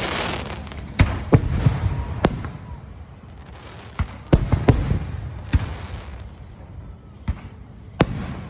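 Aerial fireworks bursting in a show: about nine sharp bangs at uneven intervals, some in quick pairs, over a rushing, crackling haze that is thickest in the first couple of seconds.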